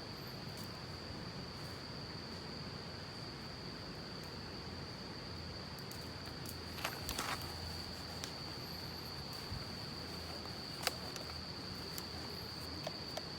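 Crickets trilling steadily on one high, unbroken note, with a few light clicks about seven and eleven seconds in.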